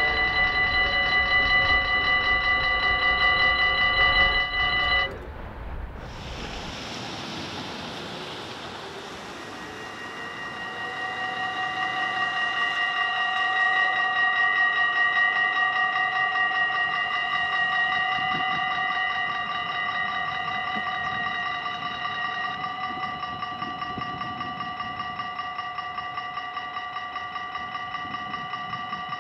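Dutch level-crossing warning bells ringing with a fast, even ring, cutting off about five seconds in. After a short gap the bells start again, growing louder over a few seconds and ringing steadily while the crossing barriers come down.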